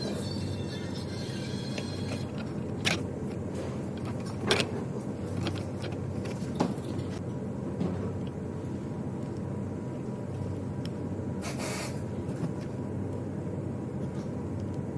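Steady low hum with scattered sharp clicks and knocks of parts and tools being handled, and a short burst of hiss about eleven seconds in.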